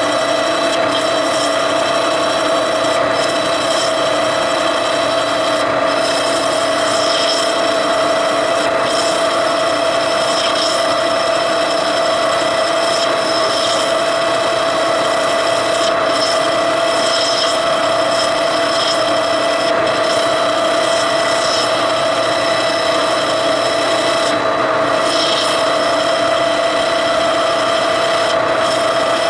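Machine tool running steadily while cutting metal: a constant whine with a rasping cutting noise over it.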